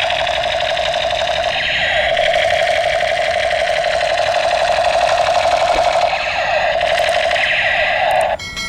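Battery-powered toy AK-47 (Spider-Man themed) firing its electronic machine-gun sound effect: a continuous buzzy rattle with a steady tone underneath, which cuts off abruptly near the end.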